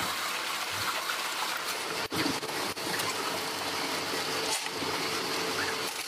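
Steady rushing, water-like noise from a finishing machine as metal D shackles are worked in its perforated tray, over a faint steady hum.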